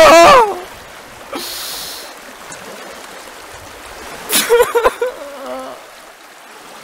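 A young man crying: a loud, strained wail that falls in pitch and breaks off in the first half-second, a sharp breath in at about a second and a half, then a shorter, broken sob about four seconds in.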